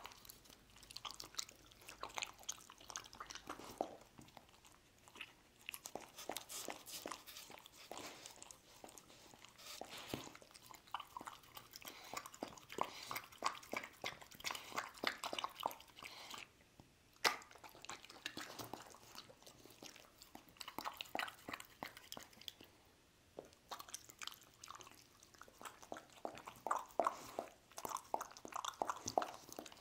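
A dog chewing soft sliced rice cakes and licking broth from a ceramic bowl: wet smacks and clicks in runs, broken by short pauses, with one sharp click about halfway through.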